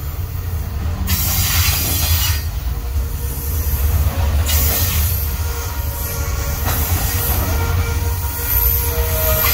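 Aurizon coal train's hopper wagons rolling past: a deep, steady rumble of wheels on rail, with bursts of hiss and a thin, high wheel squeal from the wheel flanges on the curve, the squeal clearer in the second half.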